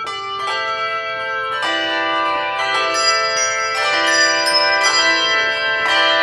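Handbell choir playing: handbells struck in chords, several at a time, each note ringing on and overlapping the next. The music fills out and gets a little louder about a second and a half in.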